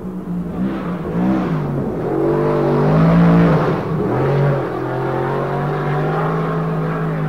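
Race car engine revving: a few quick throttle blips, then a longer climb in pitch that drops off about four seconds in, after which it holds a steady pitch.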